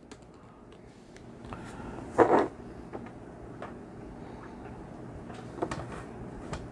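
Hands handling a plastic action figure and standing it on a tabletop: faint clicks and rustles, with one brief louder sound a little over two seconds in and a couple of small clicks near the end.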